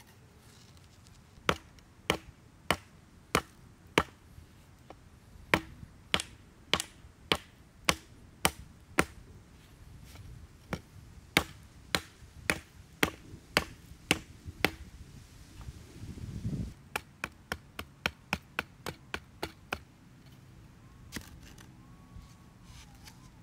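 Hatchet chopping a wooden stick: runs of sharp, evenly spaced strikes about two a second, with short pauses between runs. A quicker run of lighter strikes follows a brief scuffling noise in the second half.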